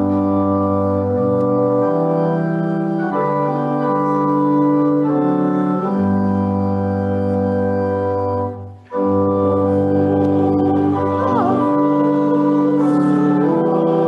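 Church organ playing a hymn in sustained chords that change every second or two, with a brief break in the sound a little under nine seconds in.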